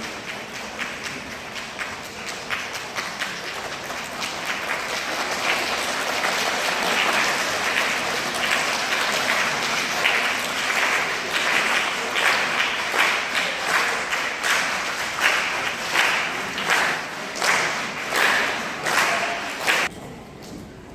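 Audience applause that grows louder and, in its second half, falls into rhythmic unison clapping of about one and a half claps a second. It cuts off sharply near the end.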